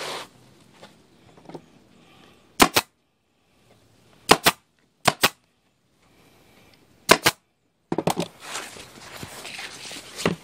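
Upholstery staple gun driving 8 mm staples through heavy vinyl into a motorcycle seat base: four sharp shots spread over several seconds, each a quick double snap. After the last one there is rustling of the vinyl being handled.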